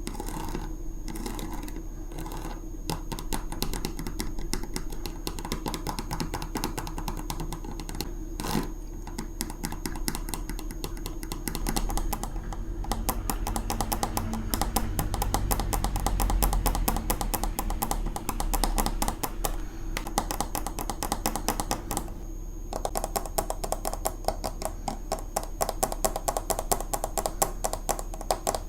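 Fridge magnets being tapped and scratched close up: fast, dense clicking and scraping like typing, busier around the middle and louder near the end.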